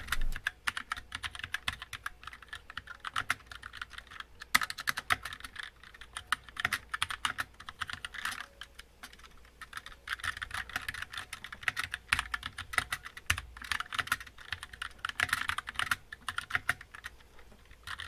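Fast typing on a Drevo Calibur mechanical keyboard with Chinese-made switches and a metal plate under the keys: a dense, uneven run of key clicks, pretty loud, coming in quicker and slower stretches.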